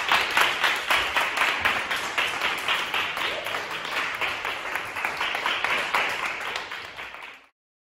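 A small group clapping hands together in a steady rhythm, about four claps a second, fading away and then cutting off suddenly near the end.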